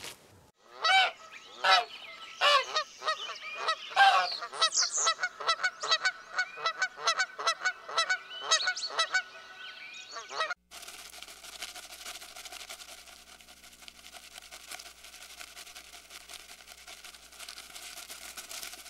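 A run of loud animal calls, each with a clear pitch, at about three a second, overlapping and speeding up, that stops abruptly about ten seconds in. After that only a faint steady hum and hiss remains.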